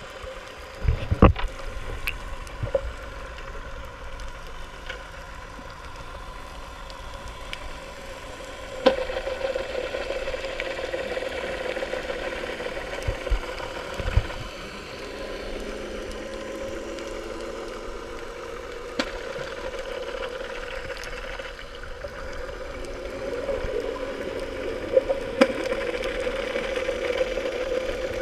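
Underwater sound of snorkelling heard through a GoPro's waterproof housing: a muffled, steady water wash with a constant low drone, broken by a few sharp knocks, the loudest about a second in.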